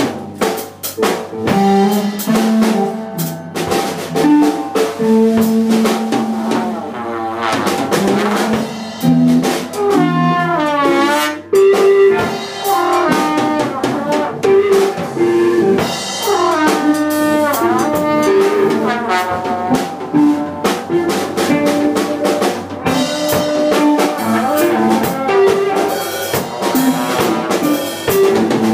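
Live band jamming: a trombone plays a melodic line of held and stepping notes, some of them bent and wavering, over a drum kit with frequent snare and rim hits, with an electric guitar in the mix.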